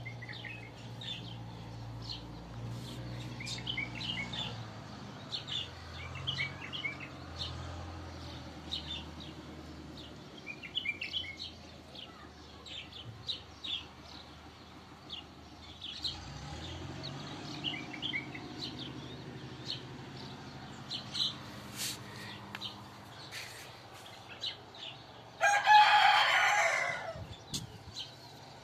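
Small birds chirping in short bursts over a low steady hum, and a rooster crowing once, loudly, about a second and a half long, near the end.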